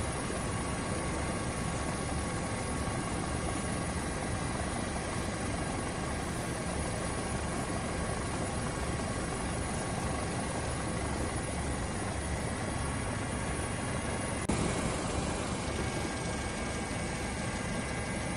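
Helicopter rotor and turbine engine running steadily, heard as a constant dense noise with a faint steady whine. The noise shifts slightly about three-quarters of the way through.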